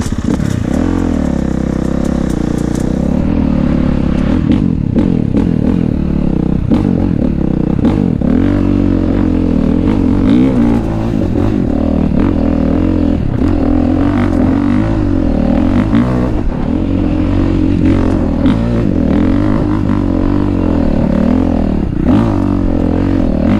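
2019 Honda CRF450R dirt bike's single-cylinder four-stroke engine pulling under load up a snowy hill climb, its revs rising and falling with the throttle. Scattered clattering knocks run through it.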